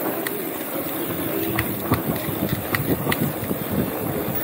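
Sunpeed Spark mountain bike rolling fast over a rough dirt road: steady tyre and wind noise, with irregular sharp clicks and knocks as the bike rattles over bumps.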